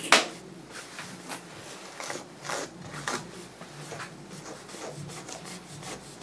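A grooming brush raking through a dog's matted curly coat in short scratchy strokes, about one every half second to second, with the loudest stroke at the very start.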